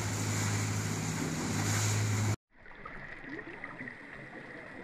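A large ship's propeller, turning half out of the water, churning the surface: a steady rush of splashing water over a low steady hum. About halfway through the sound cuts off abruptly and comes back quieter, a softer churning of water.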